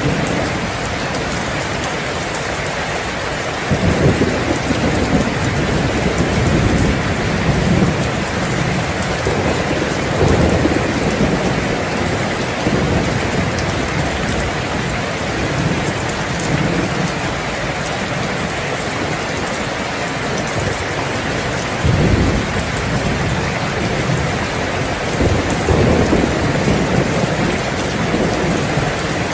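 Steady heavy rain with low rolls of thunder rumbling on and off, swelling several times, the strongest about four seconds in and again about twenty-two seconds in.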